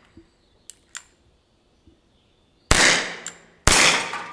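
Two gunshots from a 6 mm Flobert revolver, about a second apart in the latter half, each followed by a trailing echo. It is fired in quick succession with the trigger held down and only the hammer worked. A couple of light clicks come before the shots.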